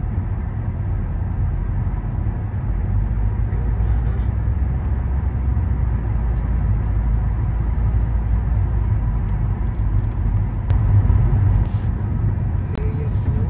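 Steady low rumble of a car's engine and tyres heard inside the cabin while driving, with a few faint clicks near the end.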